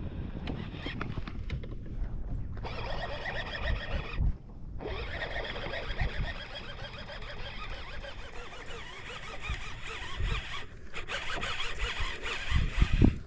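Baitcasting reel being cranked on a swimbait retrieve, its gears giving a whirring that runs in stretches with brief pauses about two, four and eleven seconds in. Wind buffets the microphone throughout.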